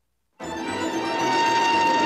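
Brief silence, then a train's running noise cuts in abruptly about half a second in: a steady rushing sound with a high whine over it.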